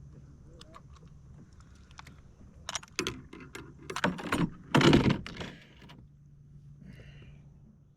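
Handling noise: a run of sharp clicks and rattles, loudest about five seconds in, over a faint steady low hum.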